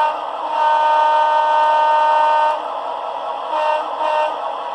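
Model-train sound decoder playing a recorded Wabco A2 locomotive air horn through the locomotive's small speaker: a long steady blast, then quieter with a shorter toot near the end. It sounds like an old car horn.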